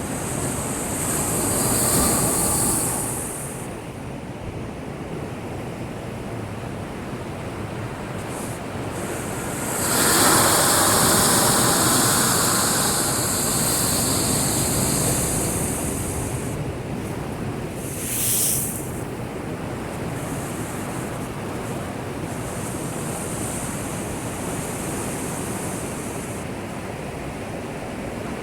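Heavy surf from a typhoon swell on a windless day: a steady wash of breaking waves with louder surges as big waves crash in. There is a brief surge about two seconds in, a long one from about ten seconds that eases over several seconds, and a short one near eighteen seconds.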